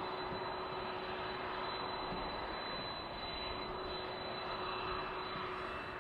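Jet airliner engines running, a steady rushing noise with a thin high whine and a lower steady hum held through it.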